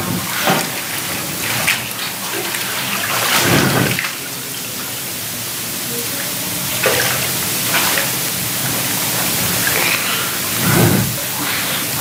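Water sloshing, splashing and dripping in a baptismal tank as people wade through it, over a steady hiss, with heavier swells about three seconds in and again near the end.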